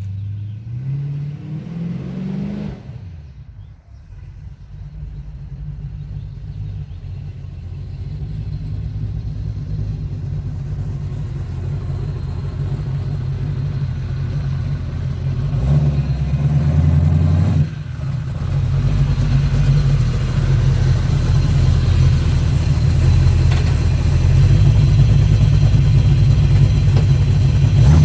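Small-block Chevy V8 of a 1986 Chevrolet C10 pickup driving and accelerating. The engine's pitch rises over the first couple of seconds, then drops. The engine then pulls steadily and grows louder, with a gear change about two-thirds of the way through.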